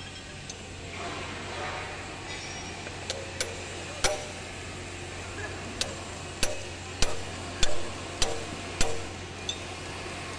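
Hand wrench clicking and clinking on a pulley bolt of a Yanmar marine diesel engine as the bolt is turned: sharp metallic clicks, scattered at first, then coming about every half second through the second half.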